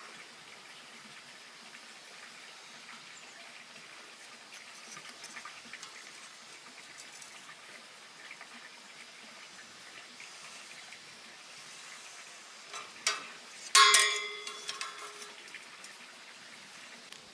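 Faint crackling hiss, then two sharp clanks of iron bars about a second apart near the end; the second is loud and rings on with clear metallic tones.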